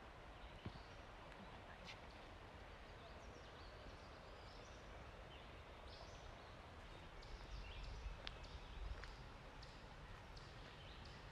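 Faint forest ambience with a few short, faint high bird chirps and a low rumble a little past the middle.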